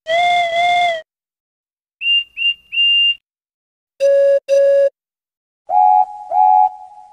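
A run of train whistle and horn calls, one engine after another: a double toot at the start, three short high pips about two seconds in, a lower double blast about four seconds in, and a double toot near the end that dies away slowly.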